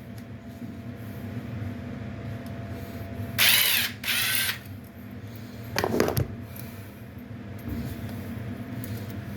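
Two quick, loud rasping, ratchet-like pulls a little over three and four seconds in, followed by a shorter knock about six seconds in, as dryer vent hose parts are opened up and handled.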